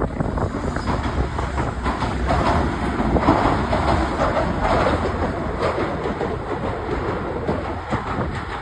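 Steady rumble and clatter of a vehicle on the move, with strong wind.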